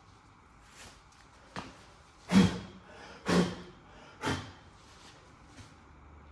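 Three short hissing squirts from a trigger spray bottle of cleaner, about a second apart, with a faint click before them.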